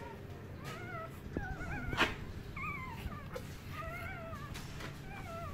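Newborn puppy crying in a series of about five short, high, wavering squeaks. A sharp knock about two seconds in.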